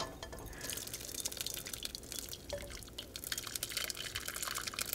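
Simmered cranberry pulp and juice pouring from a saucepan into a mesh strainer over a bowl: a continuous wet trickle made of many small drips and plops.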